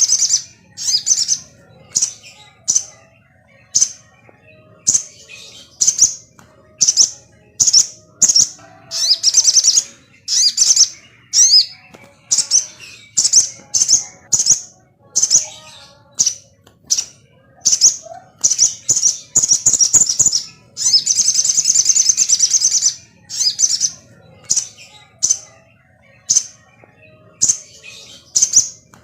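Sogon bird calling: short, high chirps repeated about once or twice a second, broken by longer bursts of rapid chattering. It is a lure call of the kind played to a kept sogon to excite it into singing.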